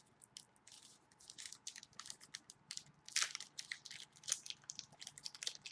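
Trading cards being handled and slid against one another: a run of faint, crisp clicks and scrapes, the sharpest about three seconds in.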